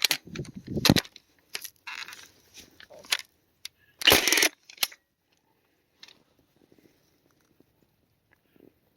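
Milwaukee 2843 cordless fence stapler firing a staple into the fence, one loud sharp shot about four seconds in, after a few lighter knocks from the tool being set in place.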